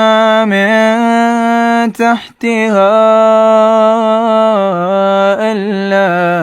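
Quran recitation in the melodic tajweed style: a single reciter's voice holding long, ornamented notes, with a brief break for breath about two seconds in.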